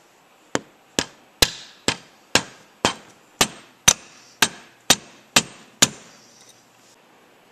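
Hammer blows driving the rocker arm shaft out through a Suzuki G16 cylinder head, about a dozen steady strikes at roughly two a second, each with a short ring. The shaft is tight in its bores with carbon buildup.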